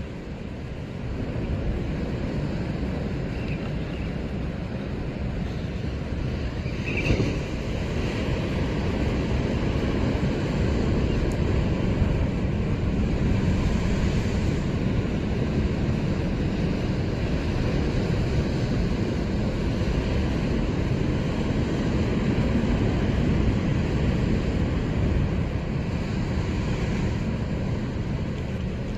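Wind rumbling on the microphone over ocean swell washing against a rock cliff, with a brief louder splash about seven seconds in.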